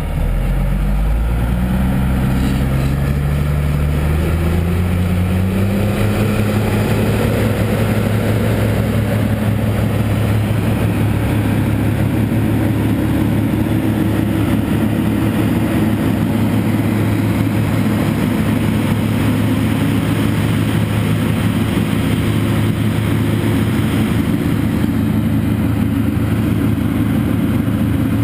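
Heavy diesel engines of a wheel loader and a road-train prime mover working hard under load as the loader tows the bogged truck up a sandy bank. The engine note climbs over the first few seconds as the revs come up, then holds steady and loud.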